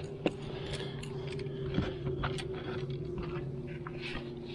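Clicks and light scrapes of a baitcasting rod, reel and soft-plastic bait being handled on a boat deck, the sharpest click about a quarter second in and two more near the middle, over a steady low hum.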